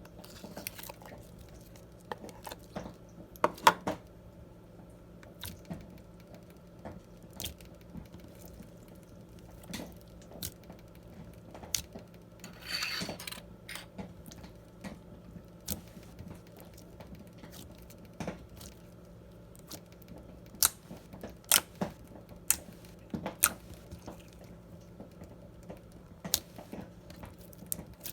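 Clear slime with glitter mixed in being squeezed and stretched by hand, giving scattered small sticky clicks and pops, with a short louder squelch about halfway through.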